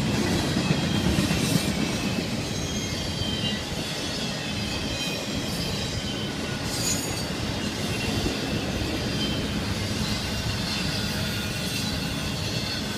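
Intermodal freight train of double-stack container cars and trailer flatcars rolling steadily past: a continuous rumble of steel wheels on rail, with thin high-pitched wheel squeals coming and going.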